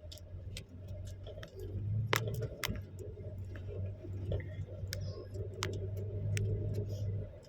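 Off-road vehicle's engine running with a steady low drone, heard from inside the vehicle while driving on the desert dunes. Scattered light clicks and rattles run through it. The drone cuts out just before the end.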